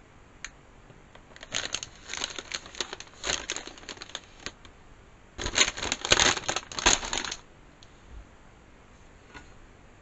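Foil snack bag of potato chips crinkling as it is handled and waved about, in two stretches of crackly rustling, the second louder.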